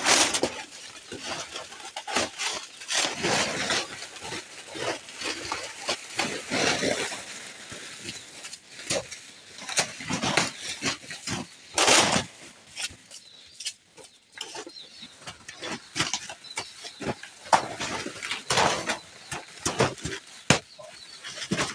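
Irregular swishing chops and rustling as a razor-sharp hand-held bladed tool (a 'penado') slashes through brush and vegetation. The strokes come unevenly, some sharp and loud, with crunching and rustling of cut plants between them.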